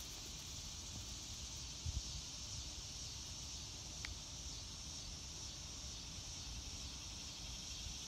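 Steady high-pitched chorus of insects, over a low rumble, with a soft thump about two seconds in.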